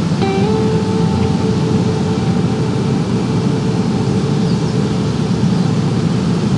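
A steady low rumbling noise, like distant traffic, with faint held musical tones underneath.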